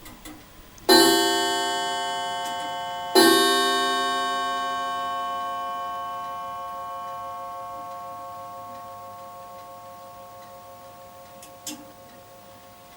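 Antique mantel clock's two-train movement striking twice on its gong, about two seconds apart, each stroke ringing on and slowly dying away. A faint click comes near the end.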